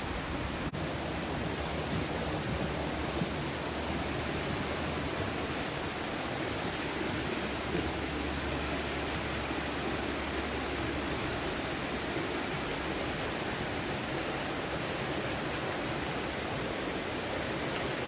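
Steady rushing of a creek and small waterfall spilling over rock ledges.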